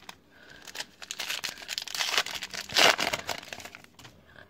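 A Topps trading-card pack's wrapper crinkling as it is torn open and the cards pulled out, loudest about three seconds in.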